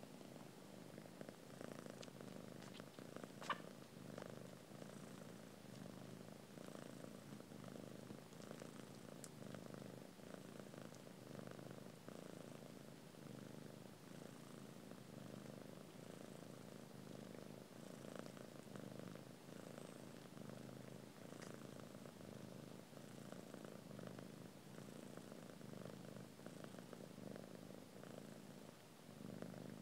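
Soft, steady purring from a grey mother cat nursing her newborn kittens. A single sharp click comes about three and a half seconds in.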